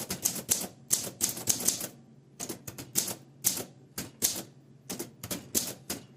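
A 1960 Olympia SM4 manual portable typewriter being typed on: quick, irregular runs of sharp key clacks, with a short pause about two seconds in.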